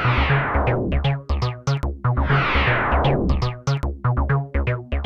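Electronic intro music with a pulsing synth bass and short repeated synth notes, with a falling whoosh at the start and again about two seconds in.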